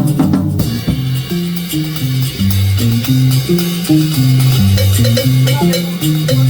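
Live band music: a bass line stepping up and down through the low notes about three or four times a second, under a drum kit with steady cymbal and drum strikes.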